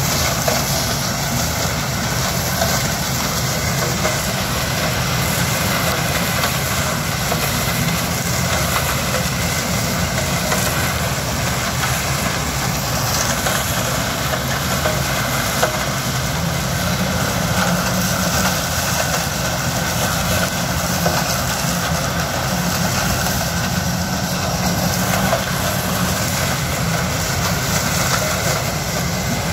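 Yanmar HS2000 sugarcane harvester's 187 hp diesel engine running steadily under load as it cuts cane and its elevator feeds chopped cane into a truck alongside. A constant mechanical din with a thin steady whine over it.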